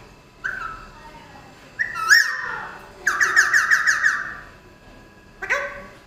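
Alexandrine parakeets calling: a few short separate calls, and about three seconds in a rapid chattering run of about ten notes lasting about a second and a half.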